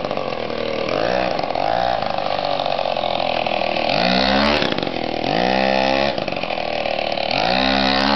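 Small engine of a 1/4-scale RC car revving up about five times, rising in pitch with each blip of throttle, between stretches of steadier running.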